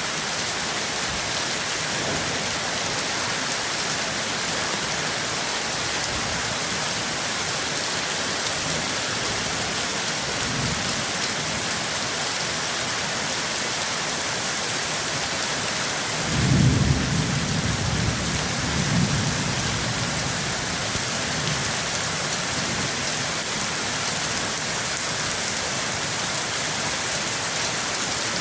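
Steady rain falling, with a roll of thunder rumbling in about halfway through, swelling twice over a few seconds before fading back under the rain.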